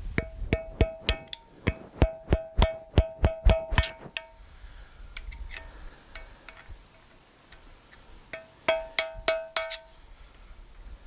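Hammer rapidly striking a screwdriver driven into a broken, seized stud in a cast-iron final drive casting. Each blow gives a sharp, ringing metallic clink, about four or five a second for some four seconds. After a pause, about six more blows come near the end.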